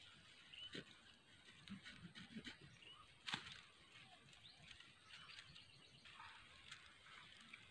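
Faint rustling and crackling of dry grass and twigs handled at close range while a snare is set, with one sharper snap a little over three seconds in.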